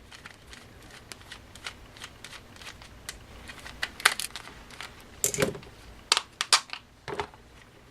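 Scattered small clicks and taps of a hand driver and small screws against the plastic differential case of an RC truck axle as the case screws are taken out, the clearest clicks coming about four seconds in and in a quick run near the end.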